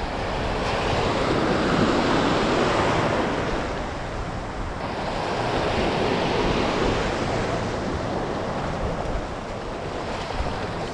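Ocean surf: small waves breaking and washing in around a wader standing in the shallows, the rush of water swelling twice.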